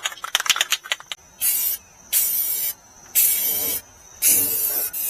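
Aerosol spray can spraying paint in four short bursts of hiss, each about half a second, after a quick run of clicks in the first second.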